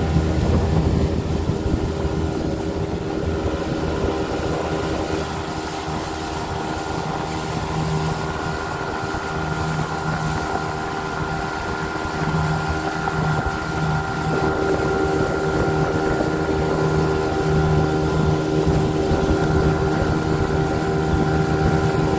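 Outboard motor running steadily as a small aluminium fishing boat cruises across the water, its note shifting slightly about two-thirds of the way through.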